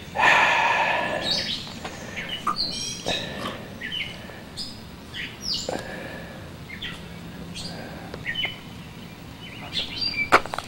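Wild birds chirping, with many short sweeping calls throughout. A louder noisy burst fills the first second and a half, and a few sharp clicks come near the end.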